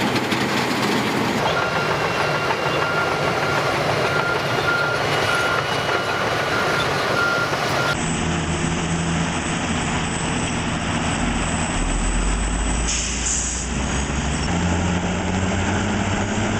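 Diesel engines of heavy earth-moving machines running under load. The sound cuts abruptly to a different engine about halfway through, and that engine's pitch rises near the end.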